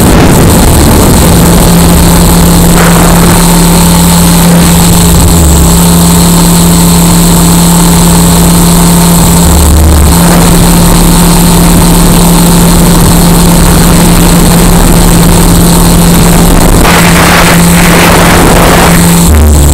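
XLPower 520 RC helicopter in flight, heard from a camera mounted on the helicopter itself: a loud, steady drone of the rotor head and drive with a high whine over it, the audio harsh and distorted.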